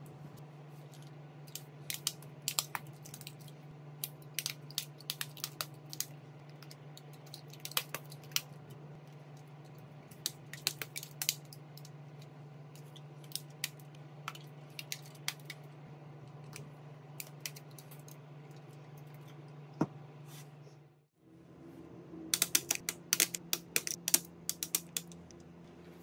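Light, sharp clicks and taps of a phone and small hand tools being handled, scattered at first and then in a quick flurry near the end, over a steady low hum that drops out for a moment about 21 seconds in.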